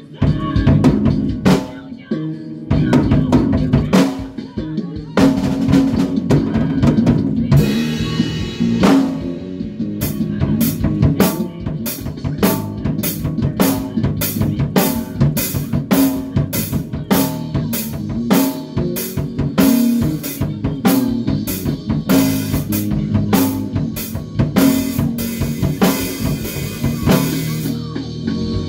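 A band playing in rehearsal: a drum kit with bass drum and snare keeps the beat under sustained low-pitched bass notes. The drumming turns to a steady, even beat about ten seconds in.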